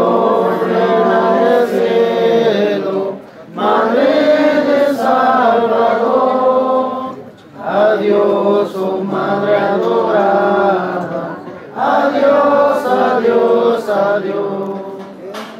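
Congregation singing a hymn together, in four long phrases of about four seconds each with short breaks for breath between them.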